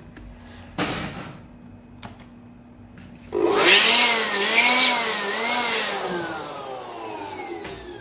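A handheld electric blower switches on suddenly about three seconds in and runs with a loud, wavering motor whine as it blows dust out of an open laptop. About two seconds later it is released, and the whine falls steadily as the motor spins down. A single knock comes about a second in.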